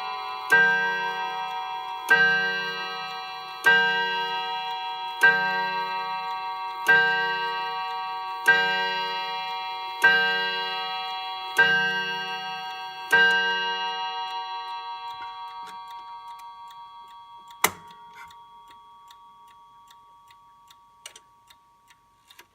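Hermle triple-chime clock striking the hour on its chime rods: nine identical ringing strikes about a second and a half apart, the last one left to die away slowly. A single sharp click comes about three-quarters of the way through, and faint ticking from the movement can be heard as the ring fades.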